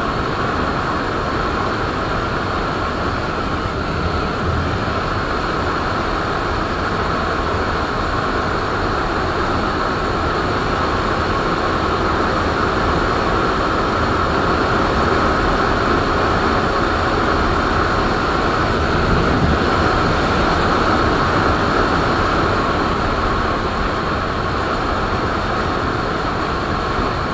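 Steady wind rush over the microphone and the even drone of a Suzuki Raider 150 Fi's single-cylinder engine, the motorcycle cruising at about 90 km/h.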